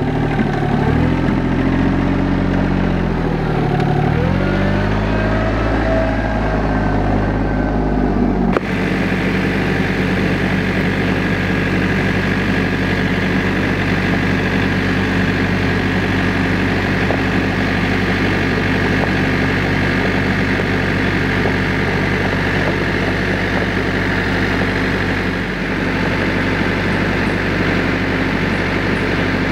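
Compact tractor's diesel engine running. For the first eight seconds or so its pitch rises and falls as the engine speeds up and slows; after an abrupt change it runs at a steady speed.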